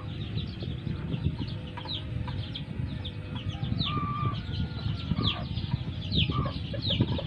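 Chickens calling: a run of short, high calls that fall in pitch, about one every half second, with a few brief steady notes in the middle.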